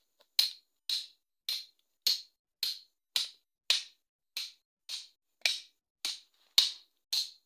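Machete chopping into a wooden pole: a steady run of sharp, evenly spaced blows, a little under two a second, about thirteen in all.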